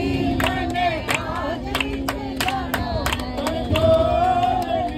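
A group of men and women singing a Hindu devotional bhajan together, clapping their hands in time at about three claps a second.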